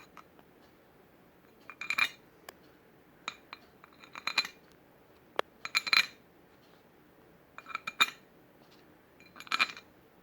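Metal clinking and rattling as the back cap goes back onto a K5LA train horn bell: about five short clusters of clinks, each with a brief metallic ring, spaced a second or two apart.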